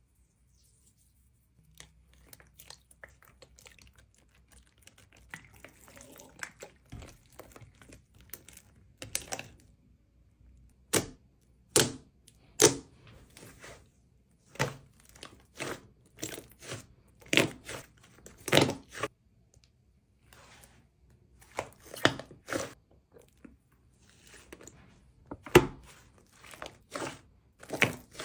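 Slime or a squishy NeeDoh-type toy being squeezed, pressed and pulled: irregular sticky squelches, pops and crackles, louder and sharper from about a third of the way in.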